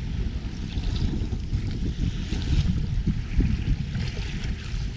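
Wind buffeting the microphone over choppy waves splashing against the bow of a small outrigger boat under way.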